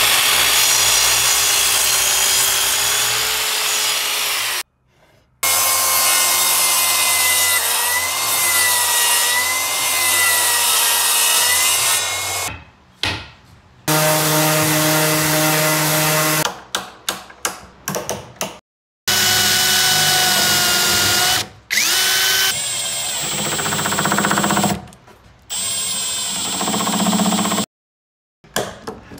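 A run of short cuts between woodworking power tools: a sliding miter saw spinning and cutting a pine block, a random orbital sander running on a board, and short bursts of a cordless driver sinking screws into pine. Each tool stops abruptly at a cut.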